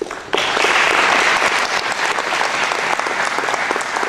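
Audience applauding, breaking out sharply about a third of a second in and going on steadily.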